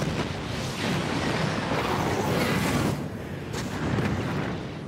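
Film sound effects of a huge fiery explosion and continuing rumble of destruction, a dense, unbroken din with no speech.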